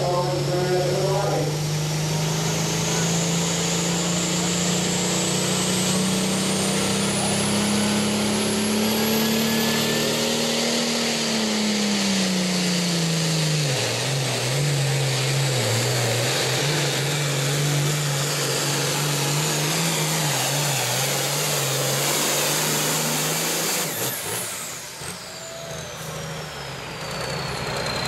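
Turbocharged diesel engine of a Super Farm class International pulling tractor running flat out down the track, with a rising turbo whine. Roughly halfway through, the engine note drops sharply and then runs unevenly as it pulls against the sled. A few seconds before the end the engine is shut off and the turbo whistles down.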